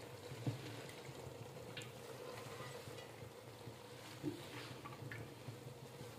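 Faint sizzling of a masala cooking in a pot under a heap of chopped fenugreek leaves, over a low steady hum, with two soft knocks.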